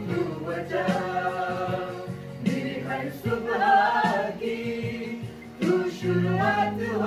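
A small mixed group of women and men singing a Hindi Christian worship song together, over steady low sustained backing notes.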